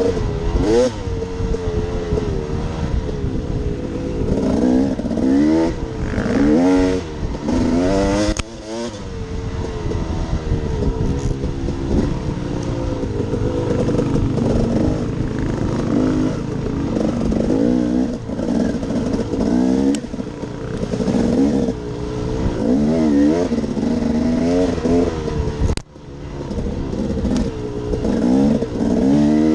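2015 KTM 250 XC two-stroke dirt bike engine heard from the rider's helmet, revving up and down repeatedly with throttle and gear changes on a twisty trail. The bike clatters over the ground, and the sound drops out sharply for a moment near the end.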